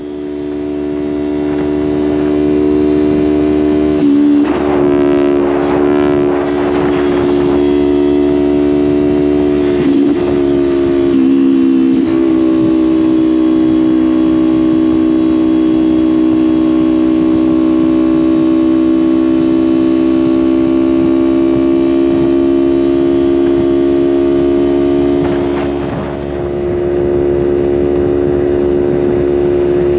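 Motorcycle engine running steadily while riding, its pitch dipping briefly about ten seconds in.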